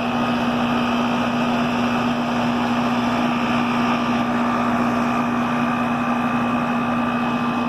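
Goodman package heat pump running in heating mode: a steady compressor hum with a thin steady whine above it, over the rush of the outdoor fan. The compressor sounds angry, a sound the owner takes as a sign the compressor is failing and not worth repairing.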